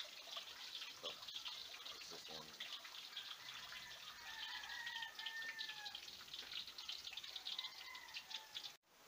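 Water splashing and dripping in a stainless steel kitchen sink, a steady crackly hiss, with a bird chirping in the background from about three seconds in; the sound cuts off abruptly just before the end.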